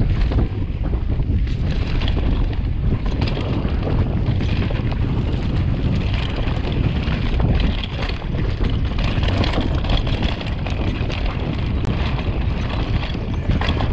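Wind rushing over the microphone of a rider-mounted camera on a mountain bike descending a dirt singletrack, with a steady low rumble from the tyres on the dirt and many small clicks and rattles from the bike over bumps.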